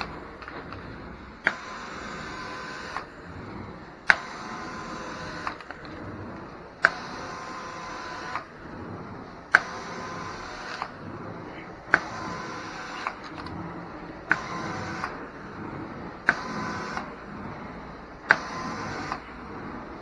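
Hot-water extraction carpet wand worked in repeated strokes, about eight in all: each starts with a sharp click and then about a second and a half of louder hissing as the wand sprays and extracts, before cutting off. Under it the extractor's suction runs steadily.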